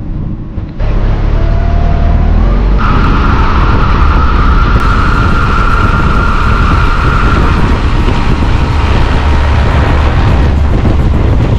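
Inflatable boat's 20 hp EFI outboard motor running at speed with water and wind rush, starting abruptly about a second in, with a steady whine for a few seconds in the middle.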